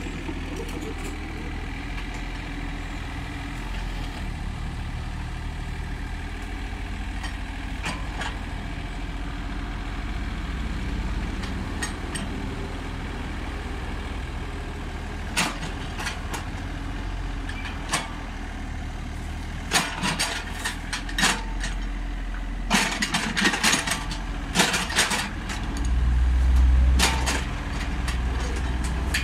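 Komatsu PC30 mini excavator's diesel engine running steadily. From about halfway there are sharp clanks and knocks, thickest a few seconds later, and the engine swells louder under load shortly before the end.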